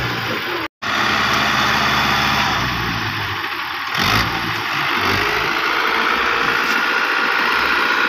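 Farm tractor's diesel engine running steadily as it drags a rear blade through loose sand. The audio cuts out completely for a moment just under a second in.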